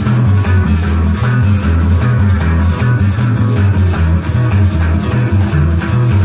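Live band playing psychedelic cumbia with electric guitars over a moving bass line and a steady beat, loud through a PA system.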